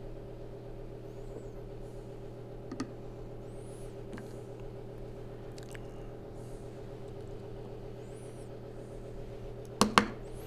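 A steady background hum of several held low tones, with a faint knock about a quarter of the way in. Near the end a plastic ladle clacks sharply a couple of times against a ceramic bowl of tomato sauce as it is set back in.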